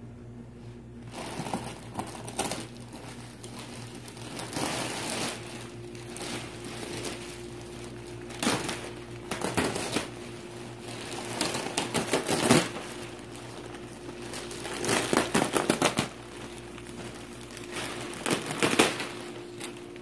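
Clear plastic wrapping around a rolled bed-in-a-box mattress crinkling and rustling as it is handled and pulled, in irregular bursts that start about a second in and are loudest around the middle and near the end.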